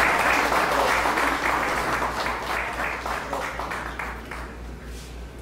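Audience applause, fading out near the end.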